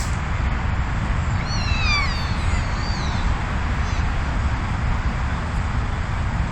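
Steady wind rumble on the microphone, with a few short falling animal calls between about one and a half and three seconds in.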